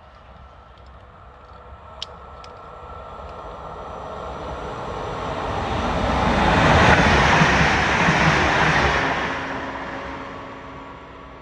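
Electric passenger train passing through the station at speed. It grows steadily louder to a peak a few seconds past the middle, then fades as it runs on past.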